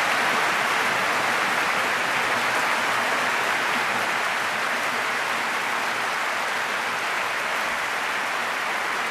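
Audience applauding: dense, even clapping that eases off slightly toward the end.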